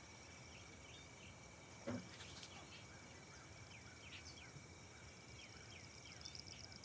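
Faint outdoor ambience: a steady insect trill with scattered short chirps. A single soft sob about two seconds in.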